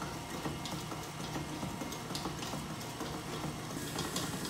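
A utensil stirring a runny lemon mixture in a bowl by hand, with irregular light knocks against the bowl.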